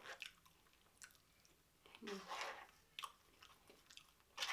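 Person chewing a soft mouthful of KFC Famous Bowl (mashed potatoes, gravy, corn and chicken) close to the microphone, faint, with wet mouth clicks and a short hum about two seconds in.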